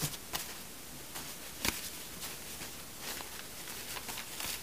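Disposable diapers rustling as hands squeeze and space them into a ring under a rubber band, with scattered soft clicks and one sharper click about a second and a half in.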